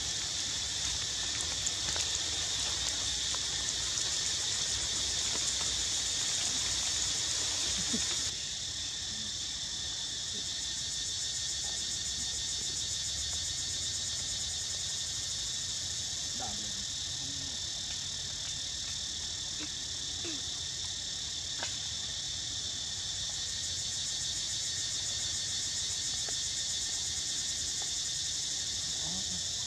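Steady, dense high-pitched chorus of forest insects, dropping a step in level about eight seconds in, with a few faint short calls underneath.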